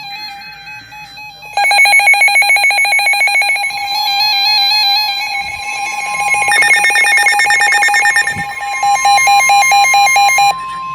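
Several NOAA weather radios going off together for a severe thunderstorm warning. Their electronic alert beeps and warbling tones come in loudly about a second and a half in, and a steady single-pitch warning alarm tone joins them about six and a half seconds in.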